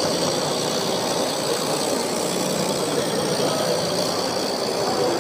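Live-steam model locomotive running: a steady, rapid mechanical clatter with a hiss above it.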